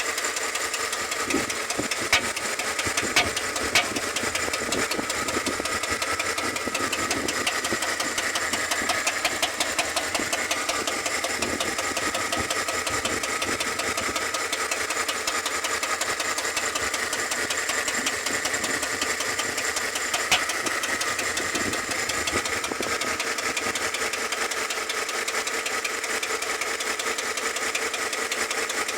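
Chevrolet Tahoe V8 engine idling with a fast, steady ticking from the valve lifters (tappets): lifter tick. A few sharper clicks stand out a couple of seconds in and again about two-thirds of the way through.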